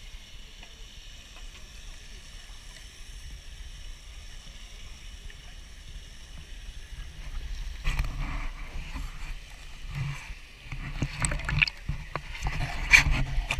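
Water sloshing and lapping around a GoPro held at the surface of a pool. It starts as a faint steady hiss, and about eight seconds in, irregular splashes with low knocks set in and grow louder toward the end.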